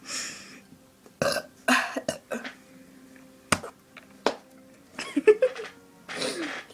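A person burping in a series of short bursts after drinking soda, with breathy puffs and a couple of sharp clicks between them.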